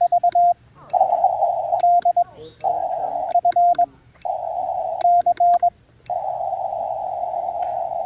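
Morse code (CW) on 20 metres heard through a ham radio transceiver: the hiss of band noise through the narrow CW filter, broken about every second and a half by a short run of quick dits at one steady pitch and a brief drop-out. From about six seconds in there is only the band hiss.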